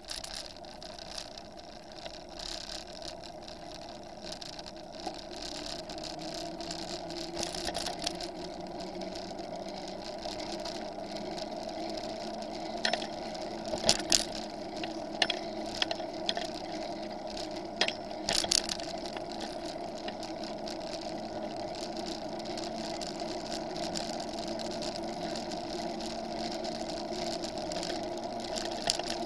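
Bicycle rolling on asphalt: a steady whirring hum from the wheels and drivetrain that grows louder as the bike gathers speed over the first several seconds. A cluster of sharp rattling knocks comes around the middle, while the bike crosses a bridge.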